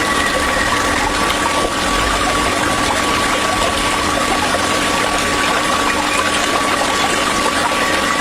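Small electric water pump running steadily with a thin, even whine, while water rushes and splashes.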